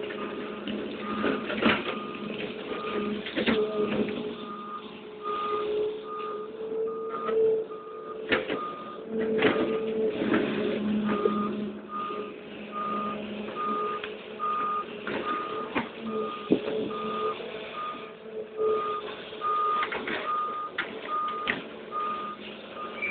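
Doosan Daewoo 160W wheeled excavator's diesel engine running steadily while its warning alarm beeps about twice a second, with a short break about ten seconds in. Scattered knocks and scrapes come from the bucket working in stony soil.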